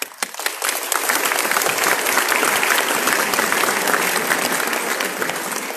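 Audience applauding: many people clapping together, starting suddenly and holding steady, easing off slightly near the end.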